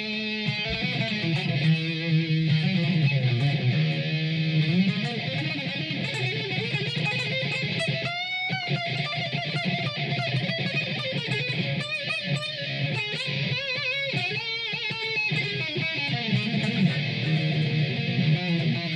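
Electric guitar played, a lead line of held notes with bends and vibrato, the most wavering high note about eight seconds in.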